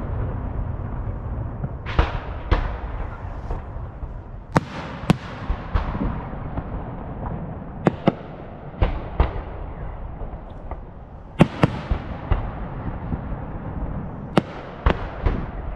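Aerial fireworks display: about fifteen sharp bangs of shells bursting overhead at irregular intervals, often in quick pairs, over a steady low rumble.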